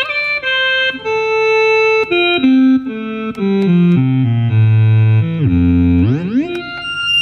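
Akai EWI 5000 electronic wind instrument on its bass clarinet patch (preset No.24), playing a run of notes that steps down into the low register and settles on a low held note. About six seconds in, the pitch sweeps quickly upward into a final held note.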